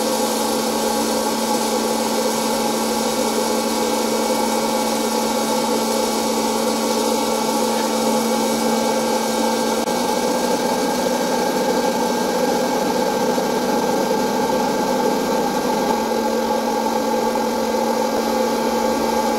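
Electric hot-air popcorn popper's fan motor running steadily, a loud even whir with a hum, blowing hot air over the kernels while they heat, none popping yet.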